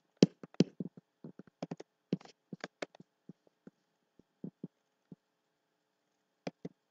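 A series of irregular sharp clicks and taps, crowded together in the first three seconds and only a few after, over a faint steady hum.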